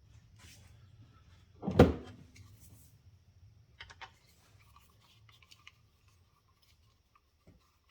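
A single sharp knock about two seconds in, with a few faint clicks and handling noises after it.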